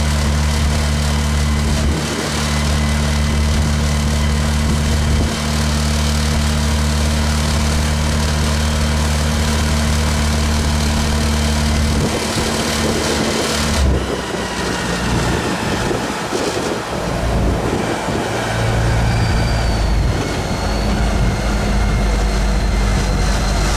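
Sunliner parking-lot tram under way: its engine runs with a steady low note over rolling noise. About twelve to fourteen seconds in, the note changes and breaks up as the tram eases off, then settles into a different steady note near the end.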